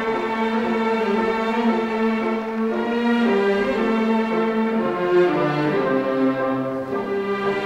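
Orchestral music with bowed strings playing long held notes that shift pitch every second or so.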